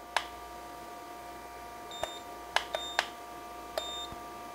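Handheld infrared thermometer clicking and giving short high beeps several times as it takes surface temperature readings, over the steady hum of the electric indoor grill's fan.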